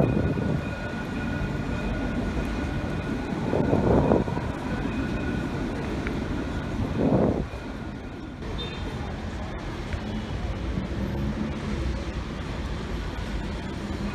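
Electric tram pulling away from a stop, with a steady high whine that fades out about six seconds in. Two louder rushes of noise come around four and seven seconds in.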